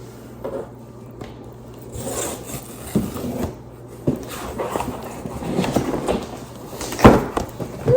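Cardboard box and packaging being handled and opened: rubbing, scraping and scattered light knocks, with one sharp thump about seven seconds in.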